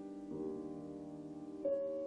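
Quiet piano chords played on an 1864 Julius Blüthner piano, each left to ring and fade; a new chord sounds about a third of a second in and another near the end.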